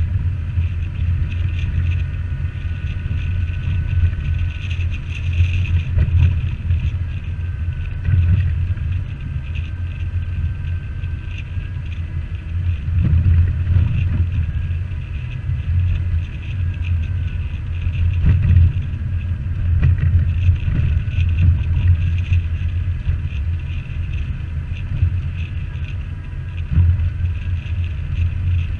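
A Jeep driving on a trail: a steady low engine and drivetrain rumble, with a faint whine that wavers up and down in pitch.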